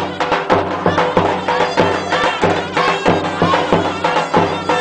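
Traditional Turkish folk music: a wind instrument plays a melody over a steady drone, with a regular drum beat.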